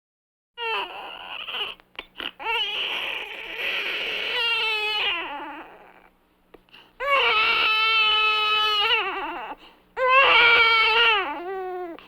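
A baby crying in long, wavering wails, broken by short gasps for breath. The cries come in bouts, and the last two are the loudest.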